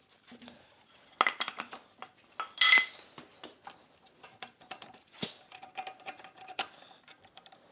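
Metal clinks and clicks of a wrench working an adjusting nut on a 30-pound Kerrihard power hammer, irregular, with one louder ringing clink about two and a half seconds in.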